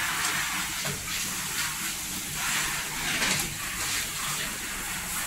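Water spraying from a grooming-tub shower hose onto a wet cat during its bath: a steady hiss.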